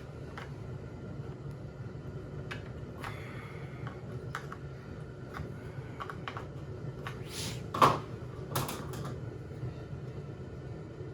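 Light clicks and knocks of chainsaw engine parts and hand tools being handled during assembly, with one sharper, louder knock about eight seconds in, over a steady low hum.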